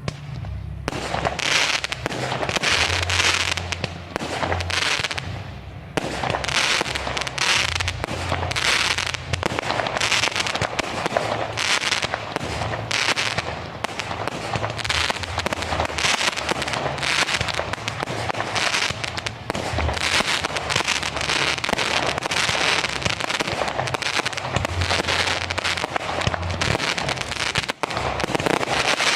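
Aerial fireworks display: shells bursting in rapid, overlapping succession with crackling, almost without pause, easing off briefly about six seconds in.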